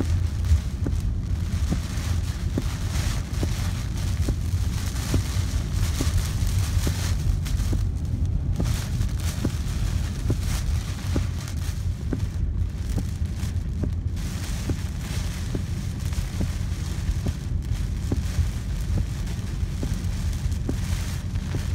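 A car driving through hurricane rain and wind: a steady low road rumble under a hiss of rain, with light ticks about once a second.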